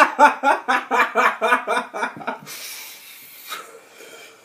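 A man laughing in a rapid run of short "ha" pulses, about five a second, for about two seconds, then a hissing breath through the mouth for about a second, a reaction to the heat of a Black Cobra chili he has just chewed.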